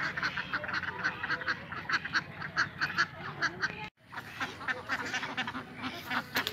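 A flock of domestic ducks quacking in quick short calls, several a second, with the sound cutting out for a moment a little past halfway.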